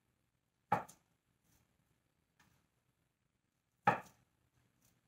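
Kitchen knife slicing through a block of Spam luncheon meat and striking the cutting board: two sharp knocks about three seconds apart, with a few faint taps between.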